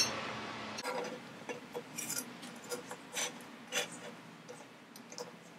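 Faint scattered clicks and light scraping of small metal parts being handled: a clamp ring being worked around the flange of a Tial blow-off valve and fitted to the charge pipe. A sharper click comes right at the start, and the handling thins out toward the end.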